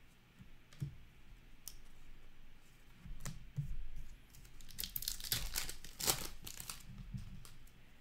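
Wrapper of a hockey card pack torn open and crinkled, with a dense run of sharp crinkles about five to seven seconds in. Before that, a few light taps and shuffles of cards on a table.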